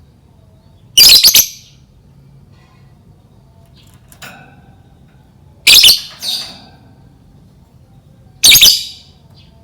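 Lovebird giving short, shrill, harsh bursts of chatter: three loud calls a few seconds apart, each about half a second long, with a faint one in between.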